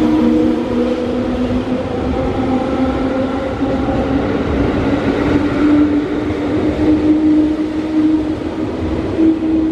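JR East 211 series electric train pulling out along the platform: traction motor and gear whine climbing slowly in pitch as it gathers speed, over the rumble of wheels on rails.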